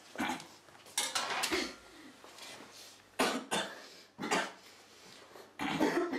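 A man coughing in repeated fits: about five bursts, some of several coughs in quick succession, with short pauses between.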